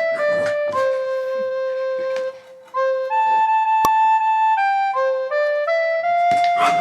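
Background music: a simple flute-like melody of held, stepping notes, with a brief pause about two and a half seconds in.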